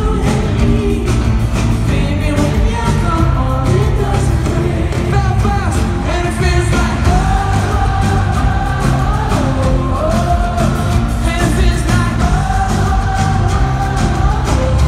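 Live pop-rock band playing with sung vocals, with long held sung notes in the second half, heard from among the audience in a large arena.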